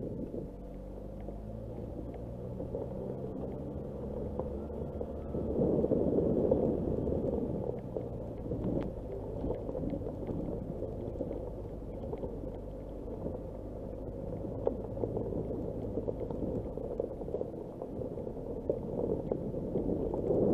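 Nissan Qashqai (J11) engine running at low speed while its tyres crunch over a loose dirt-and-stone track, with a few stones knocking under the car. The tyre and gravel noise swells for a couple of seconds about five seconds in.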